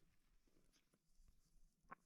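Near silence, with a few faint ticks and one slightly sharper click near the end.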